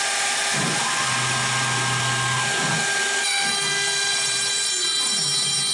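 A CNC router cutting into a wooden board with a small bit: a steady, loud spindle whine and hiss. Lower motor tones rise and fall several times as the machine moves between cuts.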